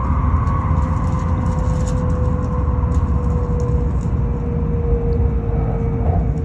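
Shinkansen train running at speed, heard inside the passenger car: a steady low rumble with a steady whine that drifts slightly lower in pitch.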